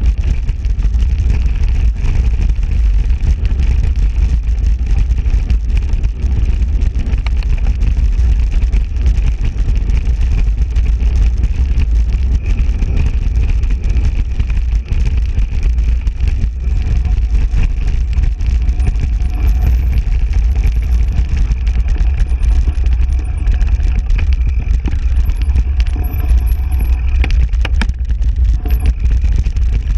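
Wind buffeting the microphone on a fast mountain-bike descent, a steady heavy rumble, with the bike clattering and rattling over rough ground. Faint high chirps come in during the second half.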